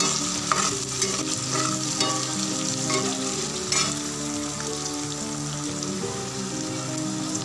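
Chopped onion and green chillies sizzling as they fry in hot oil in a kadhai, with a steady hiss, while a steel spatula stirs them, scraping and tapping against the pan a few times.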